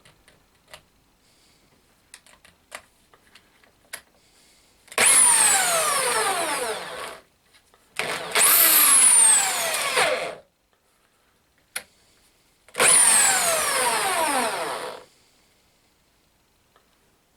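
Pistol drill spinning the CNC router's ball screw, driving the table along its linear rails, in three runs of about two seconds each. In each run the whine falls in pitch. A few light clicks come before the first run.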